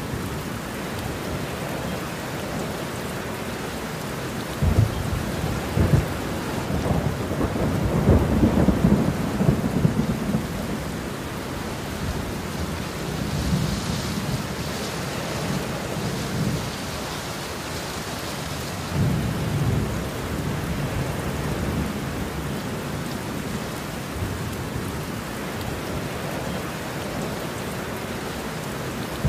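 Heavy rain falling steadily, with rolling thunder: a long rumble from about five seconds in to about eleven seconds, and a shorter one past the midpoint.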